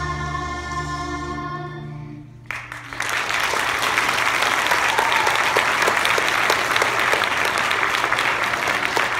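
Elementary school children's choir holding the last chord of a song, cut off about two and a half seconds in. The audience then breaks into applause that stays loud and steady.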